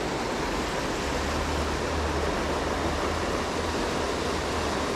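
Steady rush of water pouring over and below a dam, with a low rumble underneath from about a second in.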